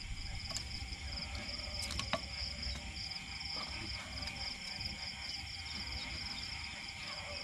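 Insects calling in a steady high-pitched pulsing chirp, about two to three pulses a second, with a few faint clicks around two seconds in.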